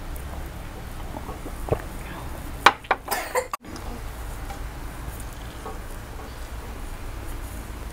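A ceramic mug is set down on a table with a short run of sharp clinks and knocks about three seconds in. Faint chewing follows over a steady low hum.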